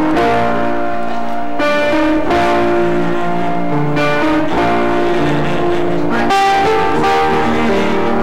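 Keyboard instrument playing slow, held chords that change about every two seconds.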